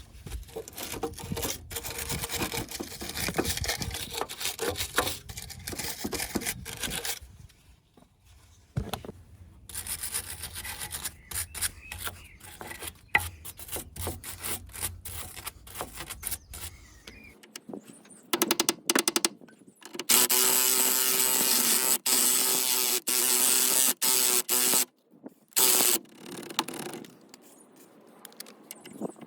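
Tools working on a car's front suspension strut assembly: irregular metallic clicking, scraping and rubbing. Near the end comes a steady mechanical whir lasting about five seconds.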